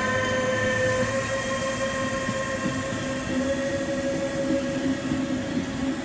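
A Class 185 electric locomotive pulling away with a train of coaches: a steady whine of several tones from its electric drive, rising slightly in pitch, over the rumble of the coaches rolling past.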